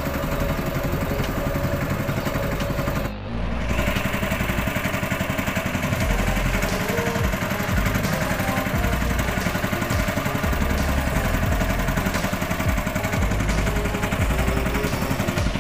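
Small boat's motor running steadily under way, with a brief drop in sound about three seconds in.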